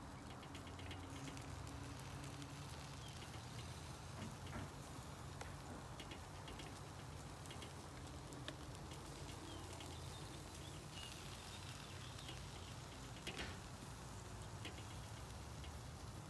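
Faint outdoor ambience with a steady low hum. A basting brush and a plastic sauce tub make light ticks and taps as barbecue sauce is brushed onto chicken drumsticks on the grill, with one sharper tap about 13 seconds in. A few faint high chirps come and go.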